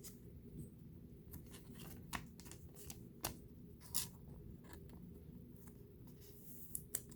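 Trading cards and pack wrapping being handled: faint, scattered clicks and rustles, a few of them louder, over a low steady hum.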